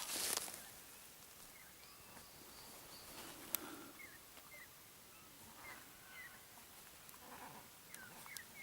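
A brief rustle at the start, then a scatter of short, high chirping animal calls, one every second or so, with a single sharp click about three and a half seconds in.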